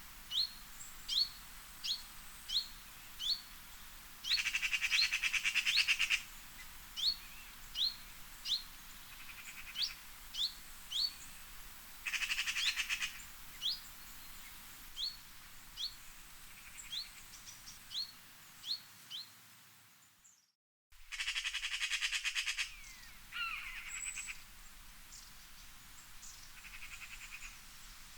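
Birdsong: a bird repeating short rising chirps over and over, interrupted three times by a louder buzzy trill lasting about two seconds, over a faint steady hiss. The sound cuts out briefly about twenty seconds in, then resumes.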